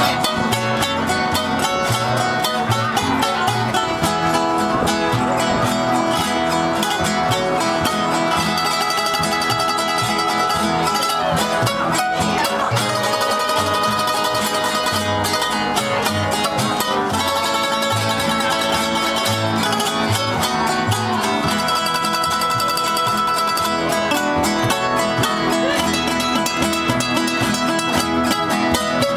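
Acoustic string trio playing: two nylon-string classical guitars strummed and picked over a plucked upright bass, in a steady rhythm.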